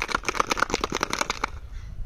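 A spark plug rattling in petrol inside a plastic soft-drink bottle shaken by hand to wash the plug clean. It makes a fast run of clicks that stops about one and a half seconds in.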